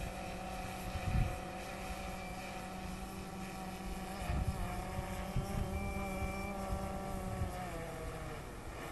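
DJI Phantom 3 quadcopter's propellers whining steadily as it is flown in to land; the pitch dips a little near the end. Wind buffets the microphone now and then.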